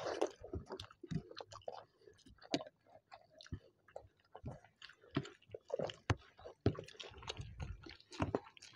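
Two people chewing and lip-smacking on mouthfuls of egg curry and rice in irregular wet clicks, with squelches of rice being mixed by hand.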